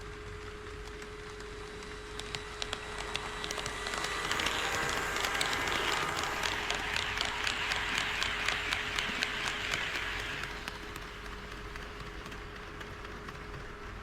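HO scale model train running past, its wheels clicking rapidly over the track joints; the rolling noise swells to a peak and fades away as it passes.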